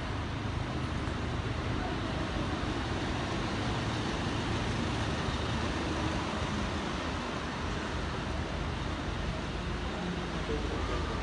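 City bus engine running close by, a steady low rumble over general road traffic.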